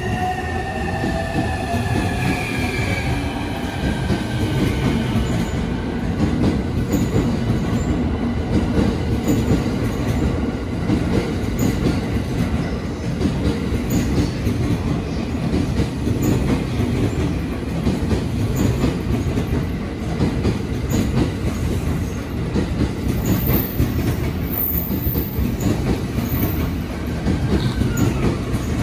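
Stainless commuter electric train running past along the platform, its wheels rumbling and clacking over the rail joints. For the first few seconds its motors give a whine with several tones gliding in pitch.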